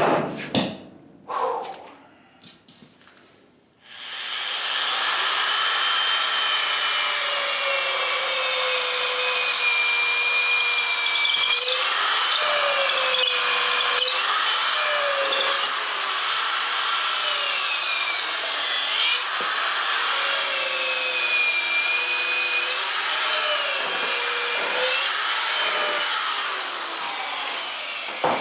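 A few sharp knocks, then a handheld power tool starts about four seconds in and runs steadily to the end. Its motor whine dips in pitch and recovers again and again as the tool is loaded, as when drilling into the timber or working metal.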